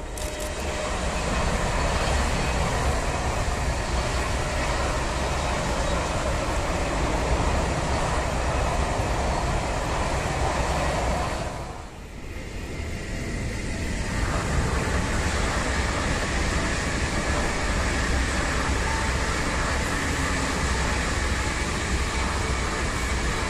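DB ICE high-speed electric trains passing at speed: a steady rushing of wheels on rails and air along the train, with a short dip about halfway through before the next train's noise builds again.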